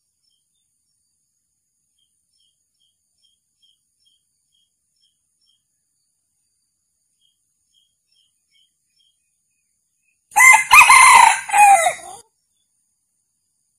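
Male red junglefowl crowing once, a single crow of about two seconds that comes about ten seconds in after a long stretch of near silence.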